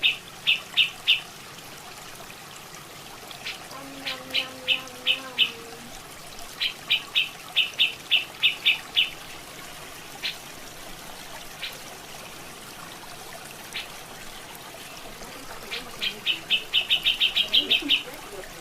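Cucak jenggot (grey-cheeked bulbul) calling in bouts of rapid, sharp repeated notes, about five or six a second, over a steady trickle of running water. A brief low hum comes in about four seconds in.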